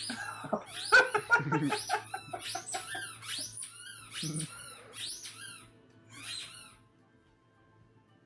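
A German Shepherd whining in short, high-pitched squeaky cries about twice a second, with one louder cry falling in pitch about a second in; the cries stop near the end.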